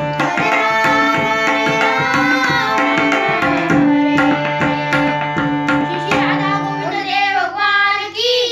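Tabla played in a quick rhythm over held harmonium chords. About six seconds in the drumming stops, the harmonium note dies away, and a child's voice is heard near the end.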